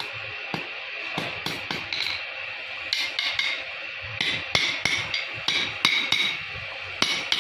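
Hammer striking steel in an irregular run of sharp blows, at times two or three a second, typical of hand-forging knife blades.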